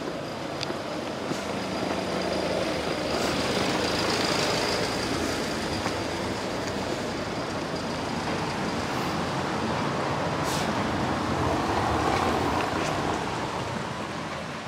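Road traffic: a steady rush of passing vehicles, swelling twice as vehicles go by.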